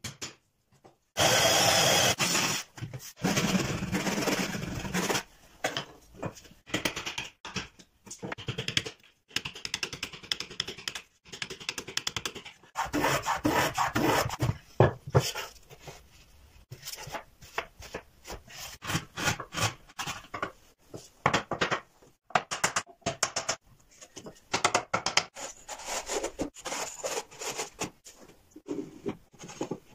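Hand woodworking on wood: rasping strokes of a hand plane and chisel shaving the wood, mixed with sharp knocks of wooden parts being tapped and fitted together, in an irregular run of separate strokes.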